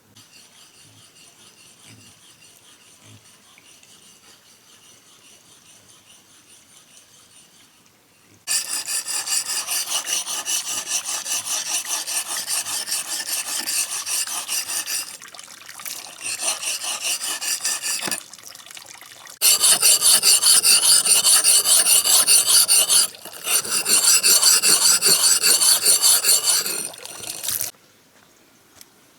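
A hand tool rasping in quick, rhythmic strokes: faint at first, then loud from about eight seconds in, in several runs broken by short pauses.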